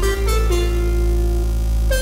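Background music with held keyboard notes over a steady deep bass.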